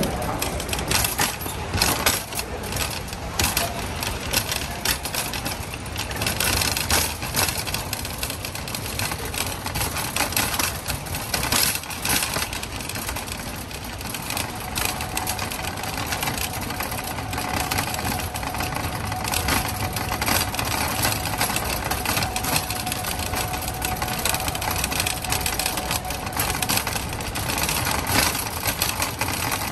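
Shopping cart rolling over a concrete garage floor: a continuous rattle and clatter of wheels and cart, full of small knocks, with the boxed load jostling in the basket.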